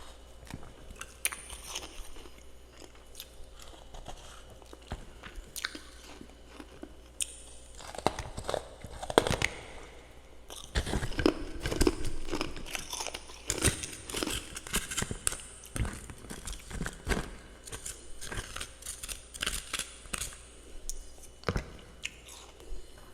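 A person biting and chewing freezer frost in the mouth: a run of crisp, crackly crunches, sparse at first and then coming thick and fast from about eight seconds in.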